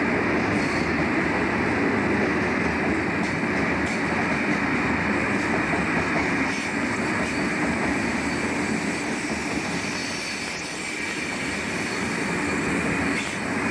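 Coal train's hopper wagons rolling past: a steady rumble and rattle of wagon wheels on the rails, with a few faint clicks as wheels pass over rail joints.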